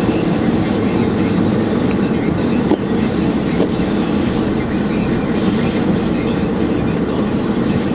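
Steady rumble of a pickup truck driving, heard from inside the cab: engine running with tyre and road noise.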